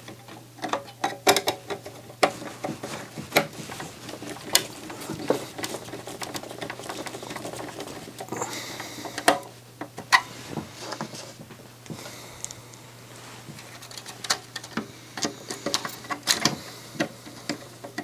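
Hand screwdrivers driving screws into a CD player's sheet-metal chassis during reassembly: irregular clicks, scrapes and small metallic rattles of the tool and parts.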